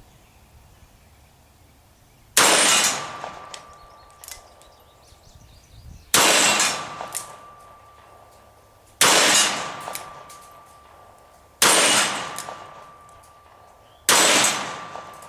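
Five rifle shots a few seconds apart, each a sharp crack trailing off in echo over about a second, with a faint steady ringing tone hanging on after each shot.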